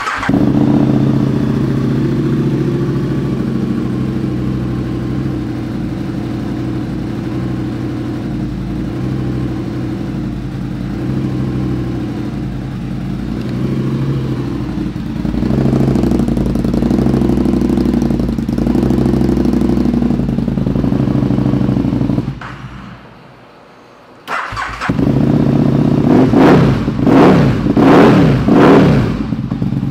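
Aprilia Tuono 1000R's 60-degree V-twin, breathing through an aftermarket exhaust, starts up and idles steadily. About 23 s in it drops out briefly, then runs again and is blipped sharply several times with the throttle.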